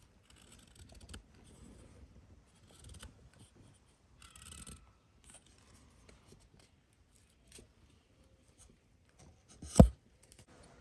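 An axe blade carving a point on a thin green stick: faint, intermittent scraping and shaving cuts. Near the end a single sharp knock of the axe striking the wooden stump.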